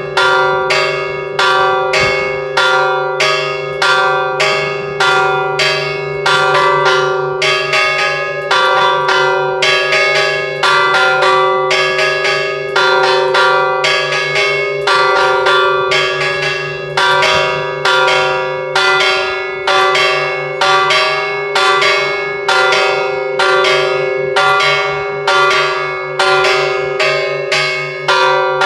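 Bronze church bell rung by hand with a rope, struck about twice a second in a steady rhythm, each stroke ringing on over the next.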